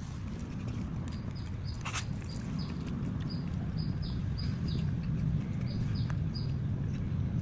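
A small bird chirping over and over, short high chirps about three a second, over a steady low rumble; a single sharp knock about two seconds in.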